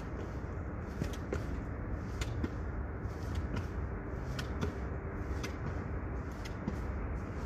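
Single-leg hops up a flight of outdoor steps, each landing held: faint sharp taps of the feet, often in pairs, about once a second, over a steady low rumble.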